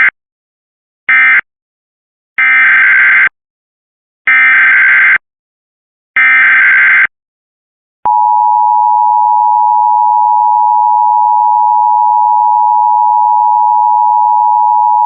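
Emergency Alert System SAME data tones: two short digital bursts that close the previous alert, then three longer screeching data bursts that are the header of the next alert. About eight seconds in, a steady attention tone starts and holds.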